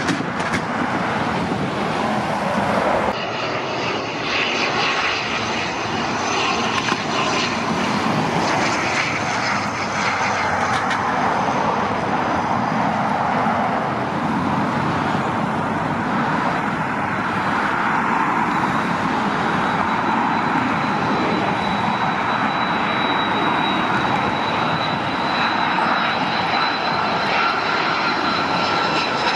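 Airliner engines at close range. An Airbus A320's jets roar at takeoff, then cut about three seconds in to an ATR-72 turboprop flying low, and the second half is an Airbus A330 on final approach, its engine noise carrying a steady high whine.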